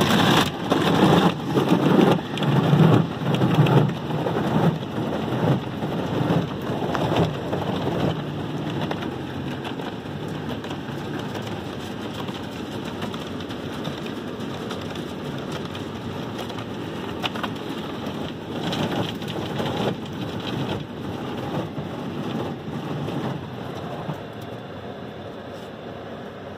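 Automatic car wash heard from inside the car's cabin: foam cloth brushes slap and scrub against the body and windows in loud, rhythmic surges, then water spray hisses on the glass more steadily and fades toward the end.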